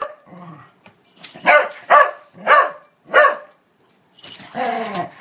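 A dog barking: four short barks about half a second apart, then a longer call that falls in pitch near the end.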